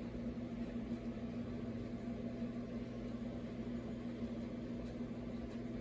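Steady low mechanical hum with a faint even hiss behind it, unchanging throughout.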